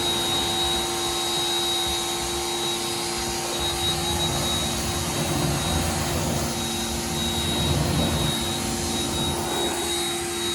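A steady machine whir with a constant high whine over an even rushing noise.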